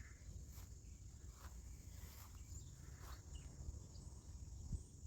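Faint outdoor ambience: a steady high-pitched insect drone, with a low rumble underneath and a few soft ticks.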